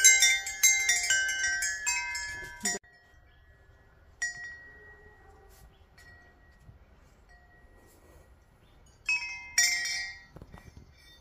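Large tubular wind chime ringing, several tubes sounding overlapping bell-like tones. The ringing cuts off suddenly about three seconds in, one faint note follows, and it rings again near the end when its daisy-shaped sail is swung by hand.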